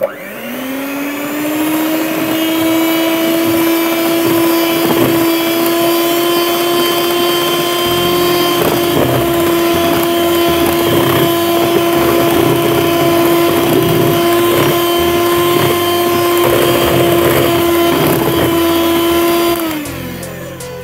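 Electric hand mixer starting up with a rising whine, then running at a steady pitch as its beaters whip cake batter, with scattered clicks and knocks. Near the end it winds down.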